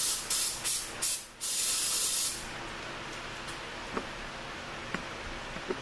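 Aerosol spray can hissing in short bursts onto a brake caliper: three quick sprays, then a longer spray of about a second, then stopping, with a few faint clicks afterwards.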